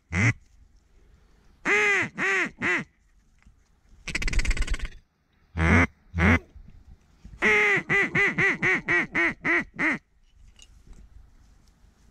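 Loud mallard-style duck quacks in bursts: three quacks, a buzzy rattling chatter, two more, then a falling run of about nine quacks in quick succession.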